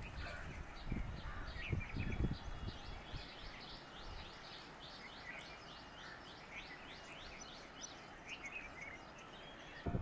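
Baya weaver birds chattering: a long run of short, high, sweeping chirps, about three a second, with a few low thumps in the first two seconds.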